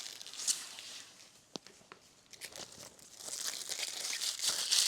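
Thin plastic wrapping from a new badminton grip crinkling as it is handled: a short rustle near the start, a sharp tap about one and a half seconds in, then steady crinkling from about three seconds in that grows louder toward the end.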